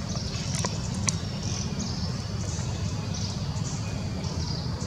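Outdoor ambience: short high chirps repeating every half second or so over a steady low rumble, with a few sharp clicks in the first second or so.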